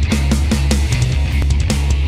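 Loud background rock music with a fast, steady drum beat and heavy bass.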